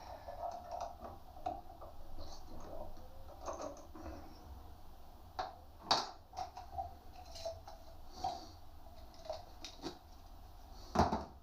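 Light metal clinks and knocks of steel parts and tools being handled at the workbench, scattered irregularly, with two sharper knocks about six seconds in and near the end.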